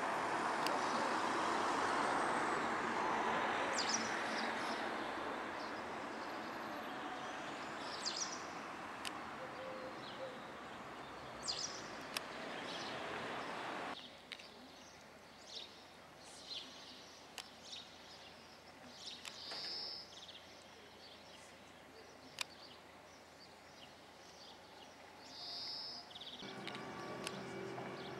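Outdoor ambience: small birds chirping now and then over a broad, steady rushing noise that drops away suddenly about halfway through. Near the end a steady hum with several tones comes in.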